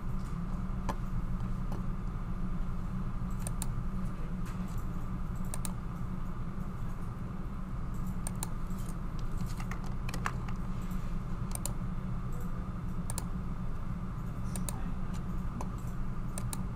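Scattered sharp clicks of a computer mouse, about a dozen, over a steady low electrical hum.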